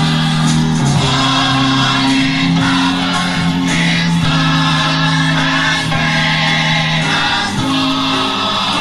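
A group of voices singing a gospel song together, holding long notes.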